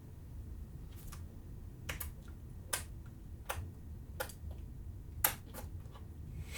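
About eight short, sharp clicks at uneven spacing, roughly one a second, over a low steady hum.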